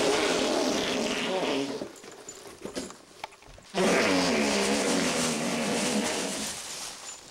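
A person making two long, rough fart noises with the mouth, the second longer, as a mock dump.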